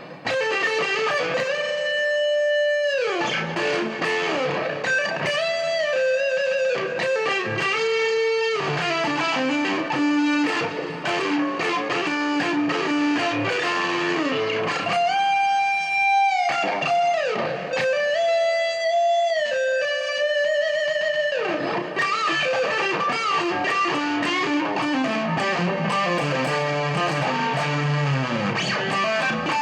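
Career Les Paul-style electric guitar played through distortion: a lead line of long held notes, several of them bent or slid down in pitch.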